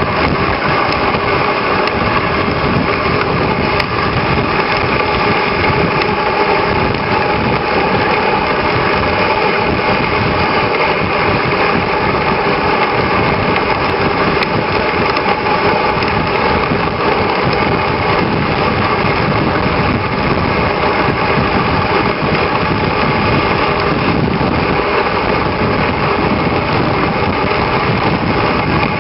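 A small engine running steadily at an even pitch, with no change in speed.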